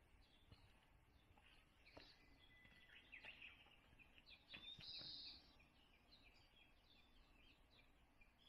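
Faint birdsong: many short chirps and whistled notes from several birds, busiest around the middle, with a few soft knocks.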